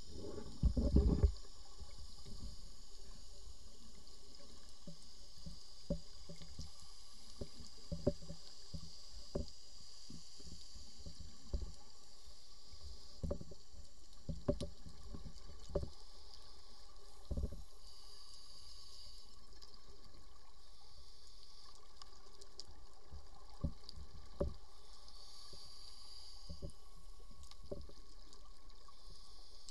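Underwater sound picked up through a camera housing on a scuba dive: a steady hiss with scattered soft low knocks and clicks every second or two, and a brief cluster of louder knocks about a second in.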